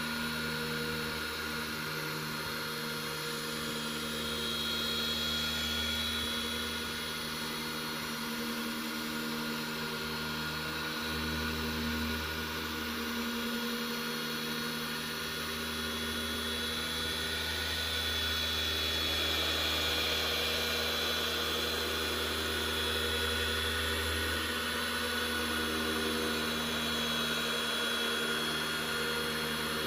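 Corded electric dual-action car polisher running steadily, its foam pad working a cutting compound into car paint; the hum holds an even pitch with small shifts in level as the pad moves over the panel.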